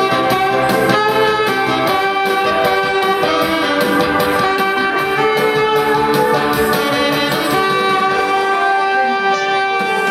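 Saxophone playing a melody of long held notes over a backing track with a steady beat.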